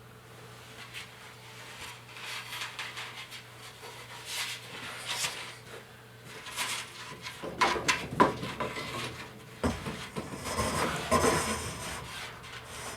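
Hand work on a wooden floor joist and a plywood panel: scraping, rubbing and clicks, busier in the second half with several sharp knocks.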